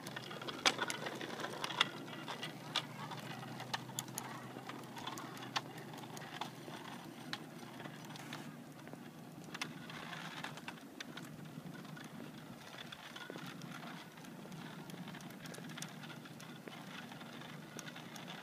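Child's bicycle with training wheels rolling over a concrete sidewalk: a steady rumble of the small wheels, with scattered clicks and knocks, several close together in the first two seconds.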